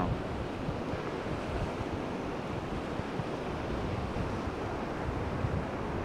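Black Sea surf breaking and washing up a sandy beach in a steady rush, with wind on the microphone.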